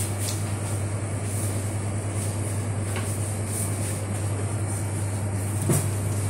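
Steady low electrical hum under room noise, with faint clicks and one knock near the end.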